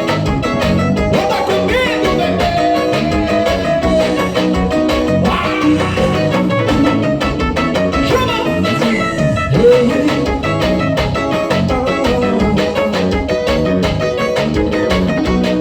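Piseiro band music played live: an instrumental stretch with a steady dance beat and no singing.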